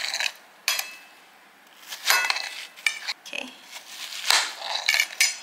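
Kitchen knife slicing through a round of watermelon flesh, with several sharp knocks as the blade hits the cutting board.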